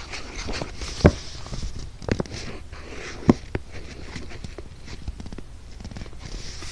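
Crayon scratching across paper as lines are drawn, with a few sharp knocks, the loudest about a second in and about three seconds in.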